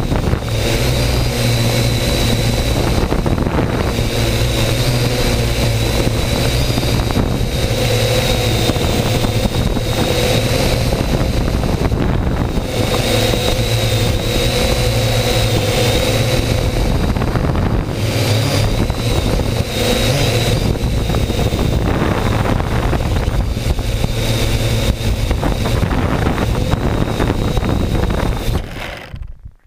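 Small drone's propellers and motors whining and buzzing steadily overhead, the pitch wavering a little as it flies, with wind gusting on the microphone. The sound falls away about a second before the end.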